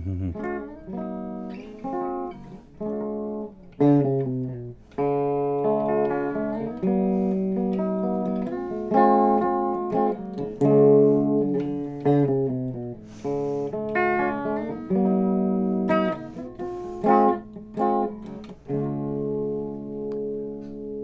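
Gibson Custom Shop SG electric guitar with three pickups being played: struck chords and single-note lines, ending on a chord left ringing. The roughly 30-year-old guitar is freshly restored, its frets levelled, neck trued, and pickup selector switch and output jack replaced.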